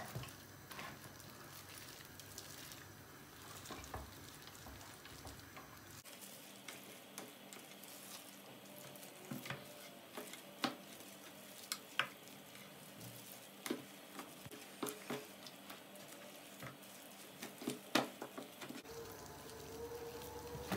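Faint wet squelching of marinated chicken chops being lifted from sauce and laid onto a baking tray by gloved hands, with scattered light taps and clicks as pieces land and are arranged.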